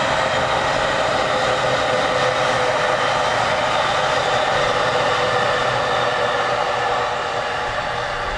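Electric commuter train running past on the Musashino Line, a steady rush of wheels on rail with a steady hum. It eases slightly near the end as the last car goes by.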